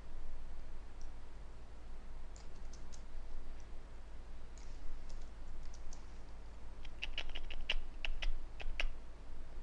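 Computer keyboard and mouse clicks: a few scattered clicks, then a quick run of key presses about seven seconds in. A steady low hum runs underneath.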